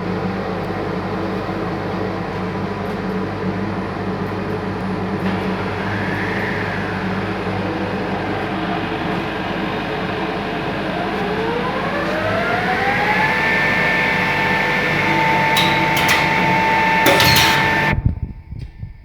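ME-332H edge banding machine running with a steady mechanical hum; about eleven seconds in a motor spins up in a rising whine that levels off and holds. A few sharp clicks follow, and the machine sound cuts off abruptly near the end.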